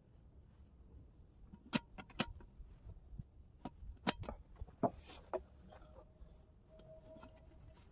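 Scattered light clicks and knocks from small objects being handled, with a faint steady tone for about two seconds near the end.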